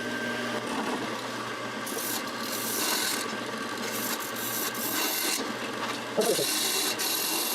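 Wood lathe running with a steady motor hum while a turning tool cuts the spinning wood-and-resin bowl, the scraping hiss of the cut coming and going as the tool is pressed in and eased off.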